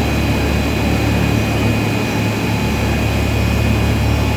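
Industrial BOPP film-on-woven-fabric processing line running steadily at production speed: a continuous machine noise with a constant low hum and a couple of faint steady high whines.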